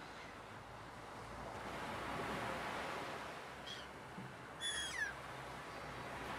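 Ocean surf: a steady wash of wave noise that swells and eases. About four and a half seconds in, a short, high bird call with a falling end cuts through, just after a fainter chirp.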